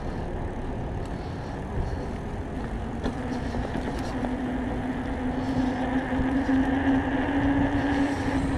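City street traffic and rolling noise heard from a moving e-bike, a steady rumble, with a steady low hum coming in about three seconds in and holding.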